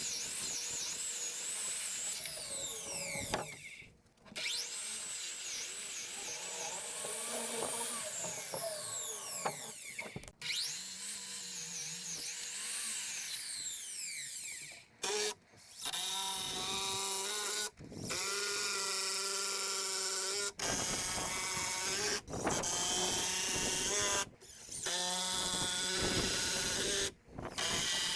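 Power drill running in a series of bursts a few seconds long, its whine rising and falling in pitch as the load changes.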